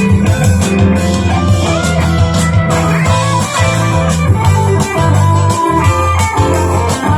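Electric guitar, a Fender Stratocaster with Lace Sensor Gold pickups, played through an amp over a backing track with drums and bass.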